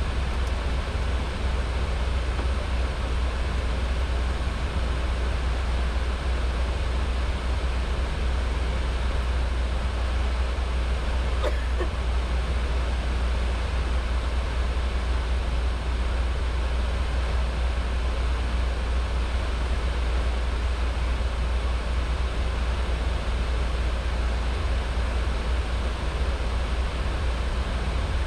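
Steady in-flight cabin noise of an Airbus A320: an even roar of engines and airflow with a strong low rumble, and one faint click about eleven seconds in.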